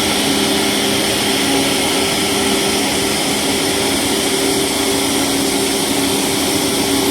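Steady jet engine and airflow noise of a Boeing 737 MAX 8 heard from inside the cabin on the ground, a constant whir with a few steady hum tones and a high hiss.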